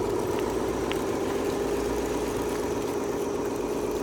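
Radio-controlled Scania SLT 8x8 model truck driving slowly over gravel while towing a multi-axle lowboy trailer loaded with a model excavator. Its drive makes a steady, even engine-like drone.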